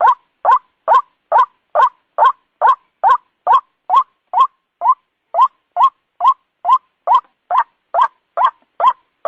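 White-breasted waterhen (ruak-ruak) calling: a steady run of short, rising croaks, a little over two a second, with one skipped beat about halfway through. It is the bird's repeated call as used on a lure recording.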